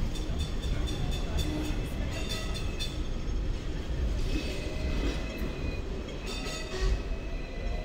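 Hong Kong tram running along its street track: a steady low rumble, with repeated short bursts of high metallic ringing.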